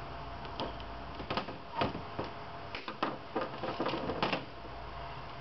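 Irregular light clicks and rattles of wires and small metal fittings being handled on a waste oil burner nozzle line assembly, a dozen or so taps over a few seconds, starting about half a second in and stopping about a second before the end.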